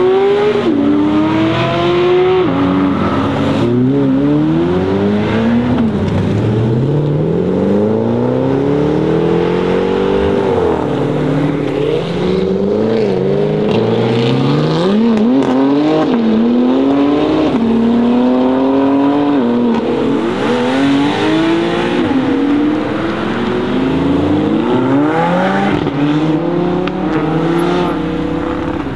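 BMW M4 CSL's twin-turbo straight-six with a loud custom exhaust, accelerating hard. The engine note climbs and drops again and again as it revs through the gears.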